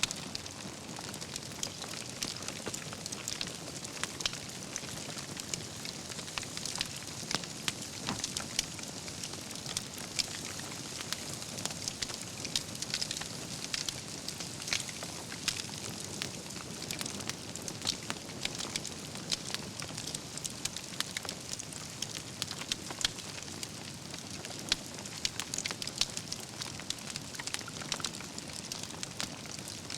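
Wood campfire burning: a steady hiss with frequent sharp crackles and pops from the burning logs, some louder than others.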